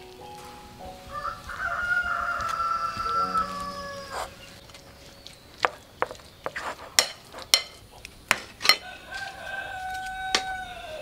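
A rooster crowing twice: a long crow starting about a second in and a shorter one near the end. Between them comes a run of sharp clicks and knocks.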